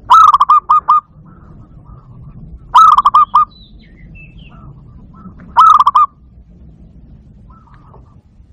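Barred dove calling: three short phrases, each a quick run of cooing notes lasting under a second, about three seconds apart.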